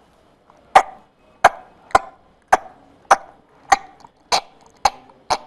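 A man imitating an Asian elephant's chuckling call by blowing into his cupped hands: nine sharp pops a little more than half a second apart. In elephants this call is a greeting to a favourite person or animal met again after a long time.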